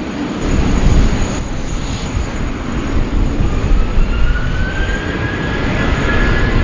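Airbus A330's Pratt & Whitney jet engines at takeoff thrust: a loud deep rumble that comes up sharply about half a second in, with a whine rising in pitch from about the middle on.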